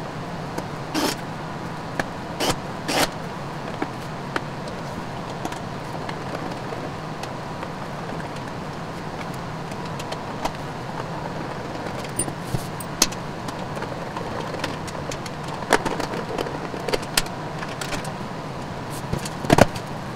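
A screwdriver and hands working on the plastic case of a Jackery Explorer 500 power station: scattered clicks and knocks as screws are backed out and the unit is handled and turned over, with the loudest knock near the end. A steady low hum runs underneath.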